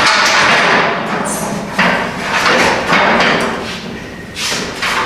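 Heavy-duty steel shelving unit being wrestled upright: its metal frame scraping and thumping on a concrete floor in a run of noisy bursts, with a short lull near the end.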